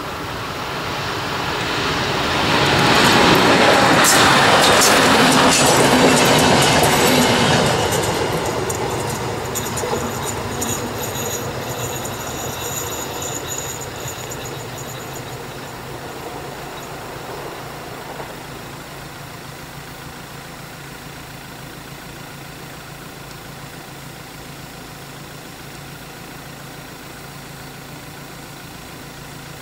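Class 471 CityElephant double-deck electric unit passing over a level crossing: it builds to its loudest a few seconds in, with wheels clattering over the rail joints, then fades slowly away. Under it the crossing's classic warning bell keeps ringing.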